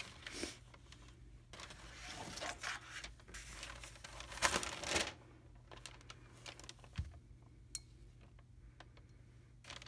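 Paper rustling and crinkling in irregular bursts as packing paper and a sheet of watercolour paper are handled on a tabletop, loudest about halfway through. After that it goes quieter, with a few light clicks and one soft knock.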